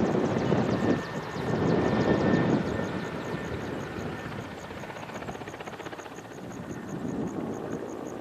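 Aircraft passing overhead, loud for the first two and a half seconds and then fading to a lower, steady distant drone.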